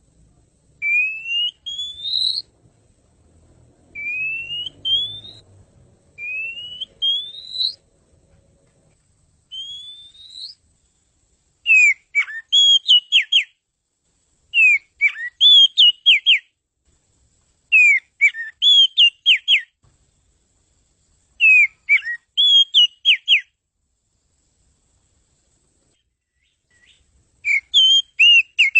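Oriental magpie-robin (kacer) singing. It opens with four clear whistles, each rising over about a second and a half, then moves into short phrases of rapid, sharply bending notes repeated about every three seconds, with a pause of a few seconds near the end.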